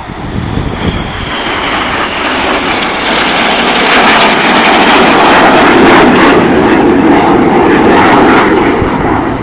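BAE Systems Hawk jets, with Rolls-Royce Adour engines, flying past low in formation: a loud jet noise that builds over the first few seconds, is loudest around the middle, and then eases off.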